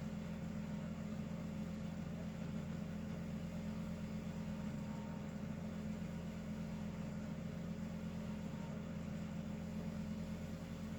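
Steady low mechanical hum with a faint higher tone over it, unchanging in level, with no rise and fall of snoring breaths.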